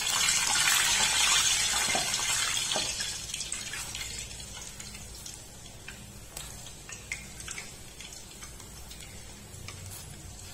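Hot oil sizzling around a gulab jamun ball frying in a kadai. The sizzle starts loud right away, dies down over the first few seconds, then settles to a quieter steady sizzle.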